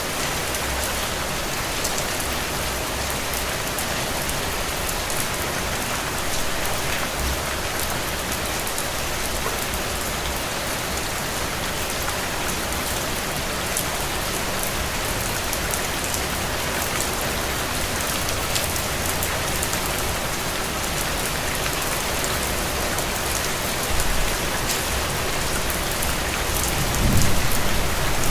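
Steady rain falling on a window, an even hiss with scattered sharp drop ticks. Near the end a low rumble rises under the rain.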